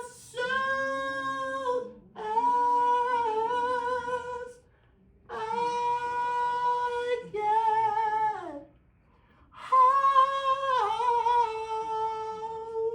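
A woman singing unaccompanied in slow phrases of long held notes, pausing twice for about a second between phrases. The last note is held steadily for several seconds near the end.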